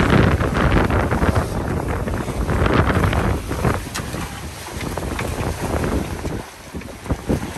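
Water rushing and splashing along a sailing trimaran's hull and float as it drives through choppy waves, with wind buffeting the microphone. The rush surges and eases with the waves and drops off briefly near the end.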